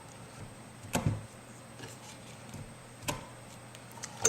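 Hand press stud setter fitted with a 3 mm hole-punch die, punching holes in material: a sharp clack about a second in, another about three seconds in, and a louder one at the very end.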